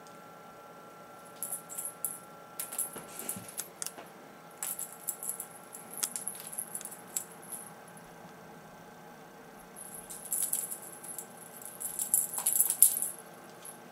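An African grey parrot rattling and clattering something as it plays: two spells of quick clicks and rattles with a short lull between, the loudest rattling near the end.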